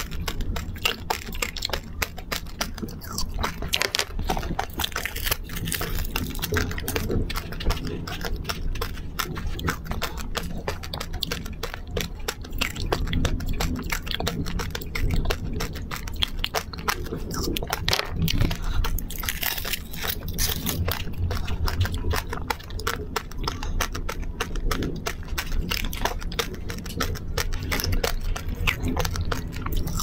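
Close-miked chewing and crunching of a chocolate-coated treat on a stick, coated in crunchy sprinkles and granules, as a steady stream of small crackles and wet mouth sounds.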